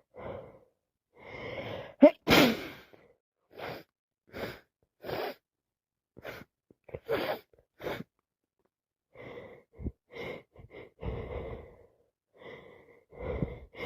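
A person with a head cold gasps in and sneezes once, loudly, about two seconds in. Then comes a run of short sniffs and breaths, and more heavy breathing near the end.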